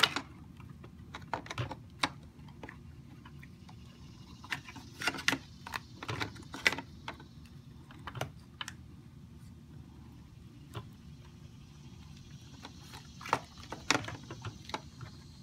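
Irregular clicks, taps and rattles of wires and plastic connectors being handled and fed through the metal centre tube of a hoverboard's frame, coming in small clusters.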